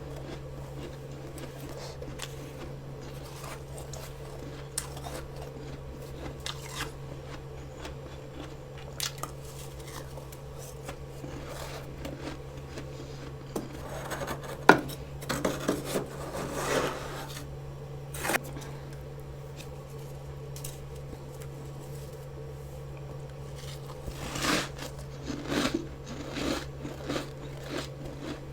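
Fresh freezer frost being scraped and crunched, with scattered scrapes and clicks and two louder clusters about halfway through and near the end, over a steady low hum.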